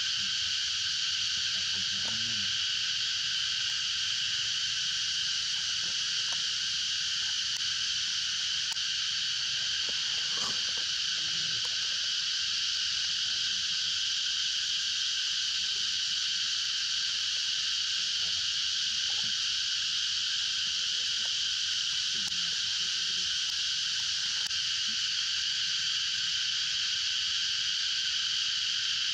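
Steady, unbroken insect chorus: a dense high-pitched hum that holds one level throughout.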